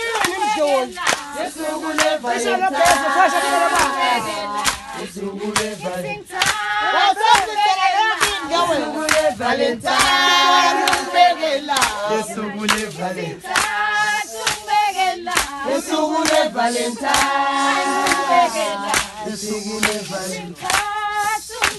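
Background music: a choir singing with frequent sharp hand-claps.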